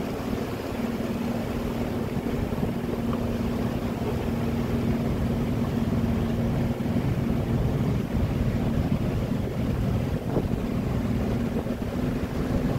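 Boat engines running with a steady hum over a low rumble, with water wash and some wind noise.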